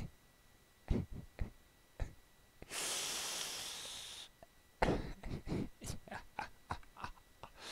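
Soft scattered clicks, then a long breathy exhale about three seconds in, followed by a run of short breathy puffs of quiet laughter into a headset microphone.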